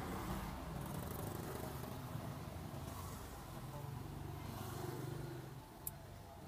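Motorcycle engine running close by, its hum dropping away near the end. A single sharp click comes just before the end.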